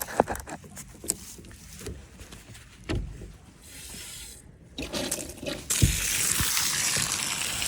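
A few knocks and clicks from handling a hose fitting, then, nearly six seconds in, a steady rush of water pouring out of the garden hose as it is drained.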